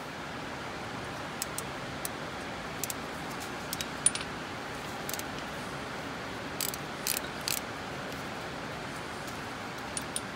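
Scattered sharp metallic clinks and clicks of a socket wrench and 12 mm socket being fitted to the water pump bolts on a Paccar MX-13 diesel engine, the loudest about four seconds in and a quick cluster of them past the middle, over a steady hiss of rain.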